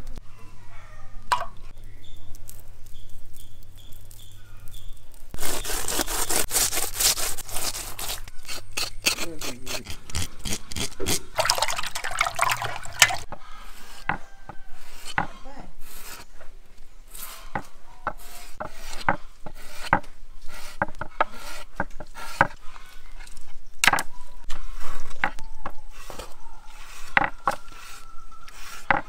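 A knife scraping and slicing a spiny eel on a wooden cutting board: a run of short rasping strokes, with longer, denser stretches of scraping about a third of the way in and again a little later.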